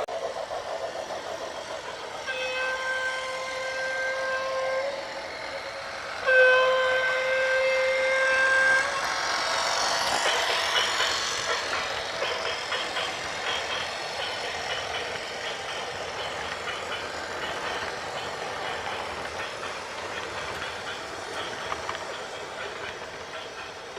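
A horn sounds two long single-pitched blasts of about two and a half seconds each. A loud rushing noise then swells and fades into a steady rattling clatter.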